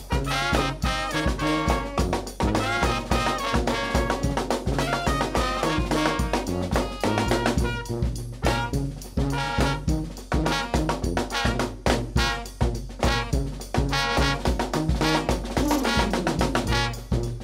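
New Orleans brass band playing live: trumpet, trombone, saxophone and flute over a sousaphone bass line, with bass drum and snare drum keeping a steady beat.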